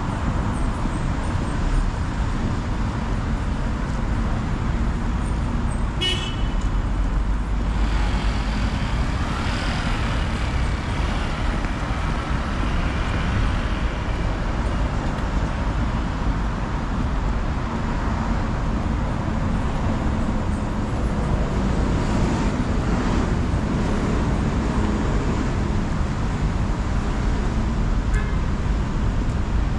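Steady city street traffic: cars and buses running past in a continuous low rumble, with a brief high-pitched sound about six seconds in.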